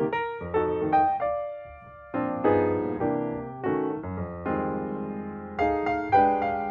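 Background music: a piano-like keyboard playing chords and a melody, each note struck and fading, with a brief lull about two seconds in.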